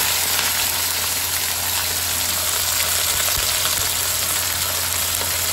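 Small fish frying in hot oil in a wok, a steady dense sizzle with fine crackling as the water on the fish makes the oil bubble up hard. A low steady hum runs underneath.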